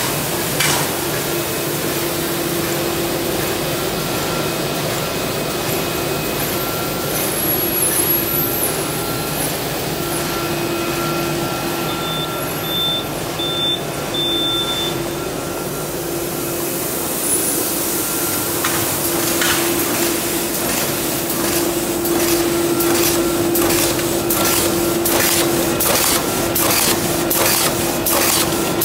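Plastic wicket bag making machine running: a steady mechanical hum and hiss with a held tone. From about two-thirds of the way in, a regular clacking about twice a second as its mechanism cycles.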